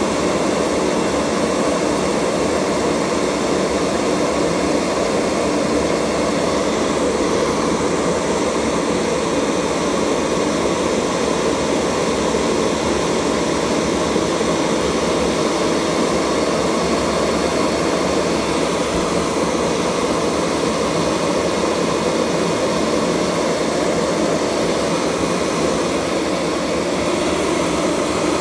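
Kirby Sentria 2 upright vacuum cleaner running steadily with its nozzle on carpet, an even motor-and-fan noise that holds the same level throughout.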